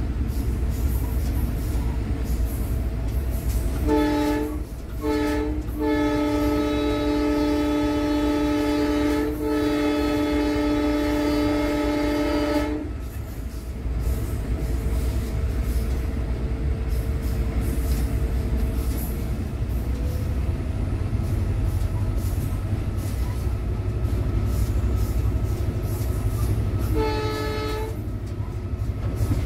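Diesel locomotive air horn heard from inside the cab of an EMD WDP4 (GT46PAC) running at speed. It gives two short blasts, then a long blast of about seven seconds, and one more short blast near the end, over the locomotive's steady low running noise and the wheels on the rails.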